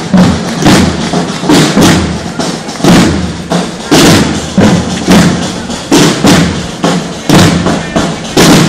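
Procession drums beating a slow march: a heavy beat about once a second with lighter strokes between.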